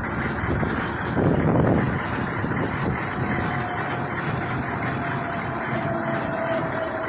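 Chevy 3500 dually's 6.5-litre turbo diesel V8 idling with the hood open, a steady engine sound with a brief louder surge about a second in.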